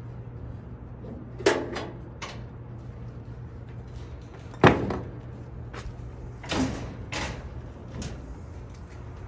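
A series of wooden knocks and clunks from a small wooden library cabinet and its parts being handled and fitted together, the loudest a little under halfway through, over a steady low hum.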